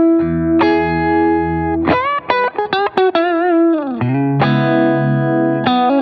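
Electric guitar played through a Fulltone Mini Deja Vibe (Uni-Vibe-style) pedal and a Line 6 HX Stomp. It plays held notes, then a quick run of notes with bends about two seconds in, a note with wavering pitch that slides down, and a held chord to finish.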